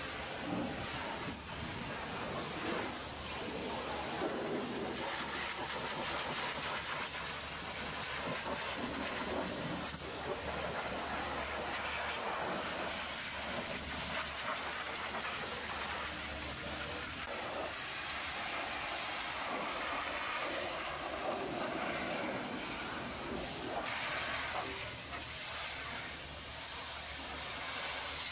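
Hot-water pressure washer lance spraying the steel chassis and toolbox of a semi-trailer: a steady hiss of spray striking metal over a low, steady hum.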